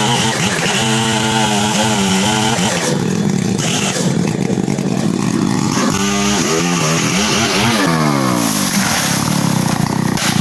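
Two-stroke chainsaw felling a teak tree, its engine speed rising and falling several times as it cuts.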